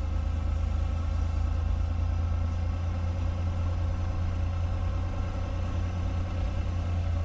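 Semi truck's diesel engine running steadily with a deep, even drone.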